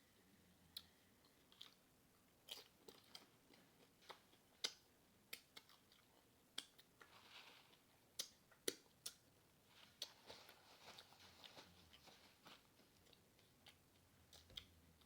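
A person chewing a mouthful of nachos (Doritos chips topped with cheese, meat and jalapeño): crunching with a steady string of short, sharp mouth smacks and clicks.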